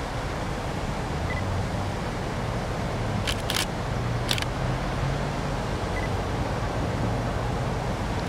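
GP9H diesel-electric locomotive approaching at low speed, its engine a steady low hum. A few sharp clicks come between about three and four and a half seconds in.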